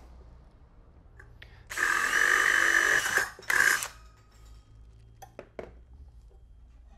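Cordless drill boring a hole through the thin sheet-metal flange of a lamp base: one run of about a second and a half, a short pause, then a second brief burst. A few light knocks follow near the end.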